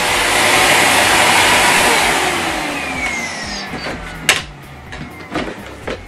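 Miele C3 canister vacuum cleaner running with a loud, even rush of suction, then switched off about two seconds in: the motor spins down with a falling whine and the rush fades. A sharp knock comes about four seconds in, followed by lighter knocks as the machine is handled.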